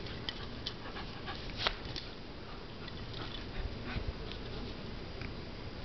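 Pointer puppy moving about on a tile floor, with light, scattered clicks and taps over a steady hiss.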